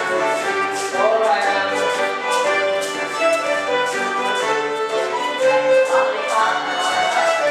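Live bush dance music for a quadrille, with a fiddle carrying the tune over a steady beat.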